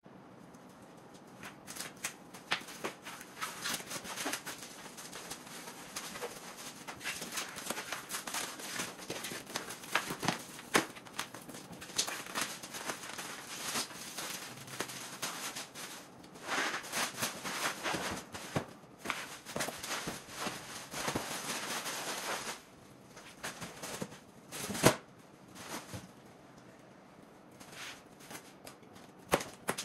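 Plastic stretch film and a plastic sheet crinkling and rustling as they are pulled off a cardboard box, with many small crackles, then quieter handling and one sharp knock late on.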